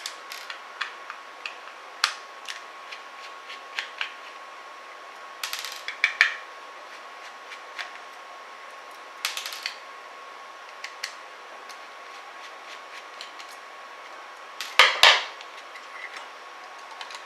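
Screws being undone on a graphics card's cooler: scattered clicks and taps of a screwdriver and small metal parts, with a louder clatter of knocks near the end.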